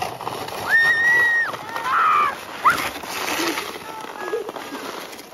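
A young girl's high-pitched squeals and excited shouts as she slides down a snowy road in a plastic laundry basket, over the steady scraping hiss of the basket on packed snow.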